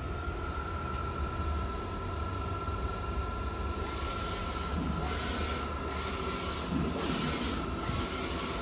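Large-format inkjet printer running a step-alignment test print, its print-head carriage sweeping across the media: a steady low rumble and a thin steady whine, with a high hiss joining about a third of the way in and dipping twice, about two seconds apart.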